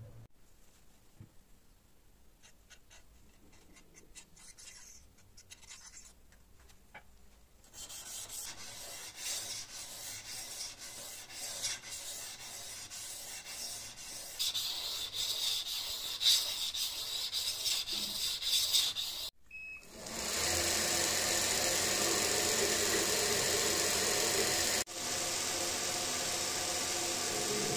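Rubbing strokes of an abrasive worked by hand along a steel katana blade, irregular and growing louder. After a brief gap, a belt grinder runs steadily, louder than the hand work.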